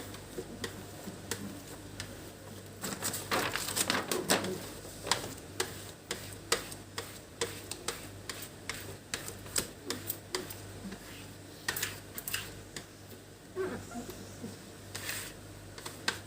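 Irregular scrapes and clicks of a plastic card being rubbed over a vinyl fridge sticker to smooth it down and push the air bubbles out.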